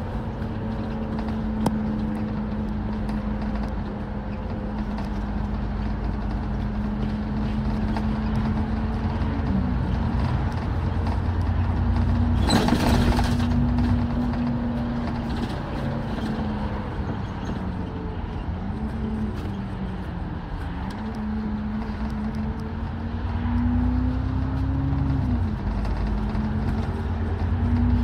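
Alexander Dennis Enviro400 MMC double-decker bus running along at road speed, heard from inside the bus: a low rumble with a steady drivetrain whine. The whine dips and rises in pitch several times in the second half as the speed changes. There is a brief hiss near the middle.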